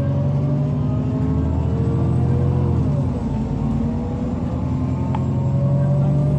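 Volvo B9TL double-decker bus's six-cylinder diesel engine pulling away under load, its pitch climbing, dropping sharply about three seconds in as the automatic gearbox shifts up, then climbing again.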